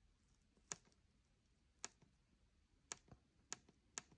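About five sharp, single plastic button clicks at irregular intervals, from the buttons of an Acetech AC6000 airsoft chronograph being pressed to step through its stored shot readings.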